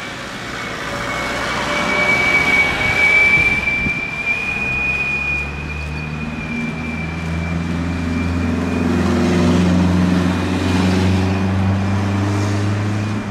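Boeing 777 turbofan engines with a steady high whine, joined about halfway through by a deep rumble that builds and holds, as thrust comes up for takeoff.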